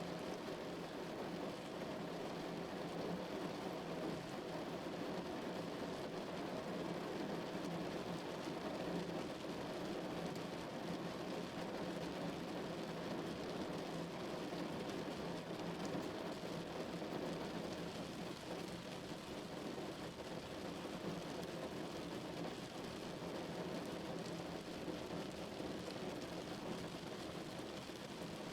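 Steady rain falling on a car's roof and windows, heard from inside the car: an even, unbroken patter with a full, low-sounding body.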